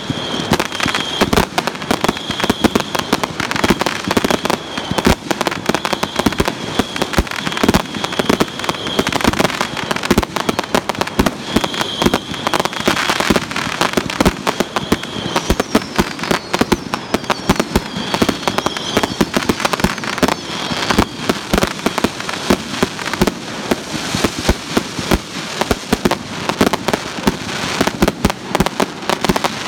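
Fireworks display: a rapid, unbroken barrage of launches and bangs from several firework tubes fired from the ground, with crackling bursts overhead.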